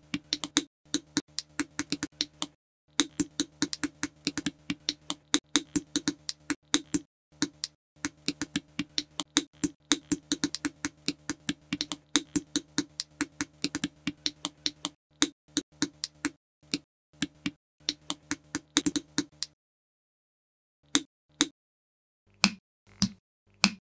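COBI plastic building bricks being snapped together and handled: a fast, irregular run of sharp clicks over a faint hum. The clicks thin out to a few isolated ones in the last four seconds.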